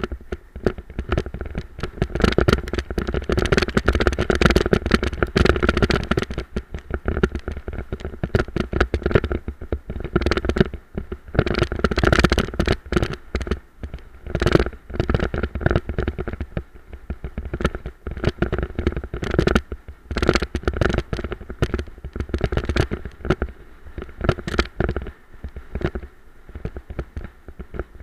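Bulla dog cart rolling fast over a bumpy dirt trail: a continuous rumble with dense rattling and knocking from the cart and camera mount jolting over the ground.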